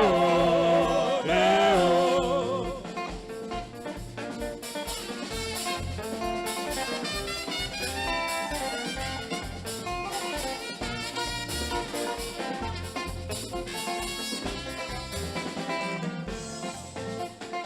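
Gospel band music: a singer's voice holds a long wavering note for about the first two seconds, then the band carries on alone with a drum kit keeping a steady beat under keyboard and horn lines.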